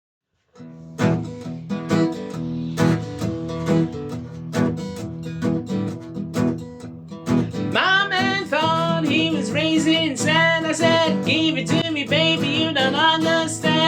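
Acoustic guitar playing a blues intro in plucked notes. About eight seconds in, a wavering, bending melody line joins over it.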